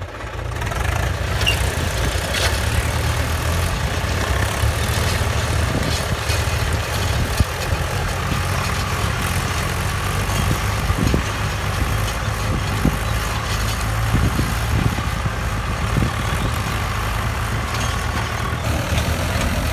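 Diesel engines of two farm tractors, a Mahindra 575 DI and a Swaraj 744, running steadily under load as they drag disc implements through the soil.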